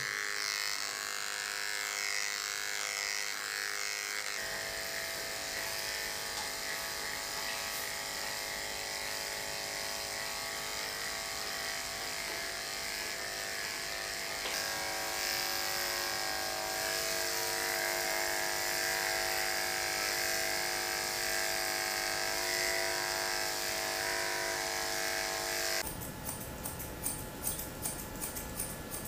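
Corded electric pet clippers running with a steady buzz as they shave a poodle's coat, the tone shifting slightly a couple of times. Near the end the buzz stops and grooming scissors snip rapidly.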